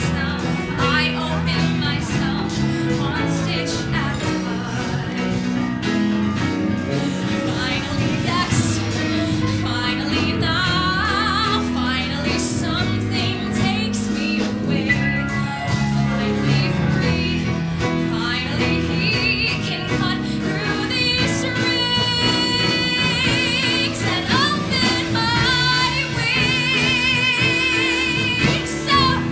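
A woman singing a musical-theatre song live with piano, bass and drums, holding long notes with vibrato in the second half.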